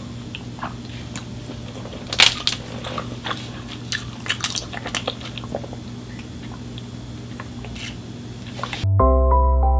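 Close-up biting and chewing of crunchy food: irregular crisp crunches, the loudest about two seconds in. Near the end it cuts off suddenly and soft electric piano music begins.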